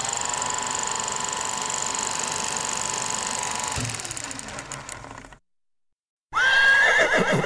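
A steady whirr with a constant tone for about four seconds, fading out, then after a short silence a horse whinnies loudly near the end with a high, wavering, falling pitch.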